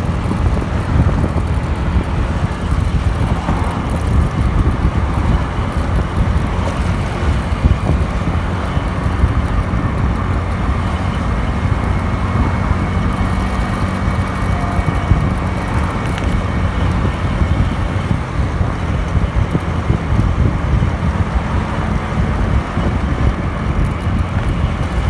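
Suzuki Address 125 scooter's single-cylinder four-stroke engine running steadily through its stock exhaust, with wind noise on the microphone.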